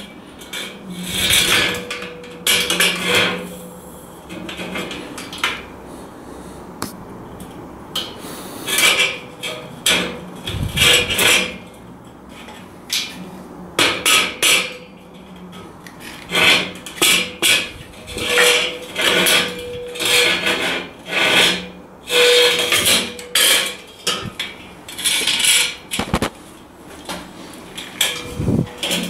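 White rubber mallet knocking a steel side beam down into the slots of a boltless shelving upright: repeated blows in bursts of several strikes, seating the beam in its slots.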